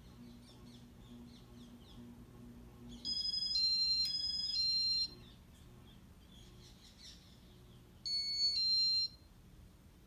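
Casablanca ceiling fan's electronic control board sounding its beep tones: four short stepped tones of different pitch about three seconds in, and two more near the end. A faint low hum fades as the first tones sound.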